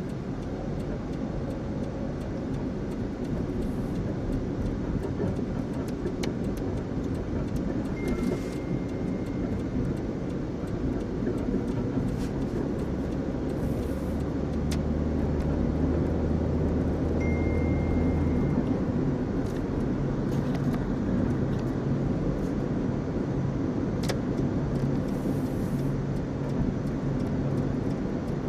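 Steady road and engine noise heard inside a moving car's cabin, growing a little louder partway through as the car picks up speed on the open road. Two short high beeps sound, one about eight seconds in and one about seventeen seconds in.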